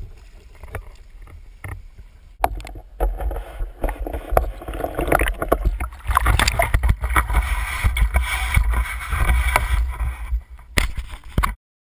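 Water splashing hard and irregularly as a hooked carp thrashes at the surface and is scooped into a landing net, close to the microphone. The splashing starts about two seconds in, grows louder about halfway, and cuts off suddenly near the end.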